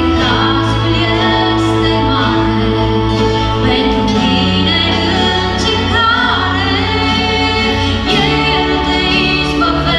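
Live worship song: a woman singing lead, backed by a band of keyboard, bass guitar and acoustic guitar with steady bass notes underneath.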